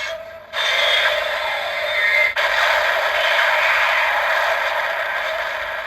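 Electronic sound effect from the DX Arc Cube toy's small speaker: a harsh grinding noise that starts about half a second in, cuts out for an instant just after two seconds, then carries on and slowly fades.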